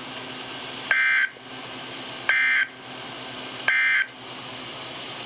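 Three short, loud bursts of shrill digital data tones, about 1.4 s apart, over steady radio hiss: the NOAA Weather Radio SAME end-of-message code, marking the end of the severe thunderstorm warning broadcast.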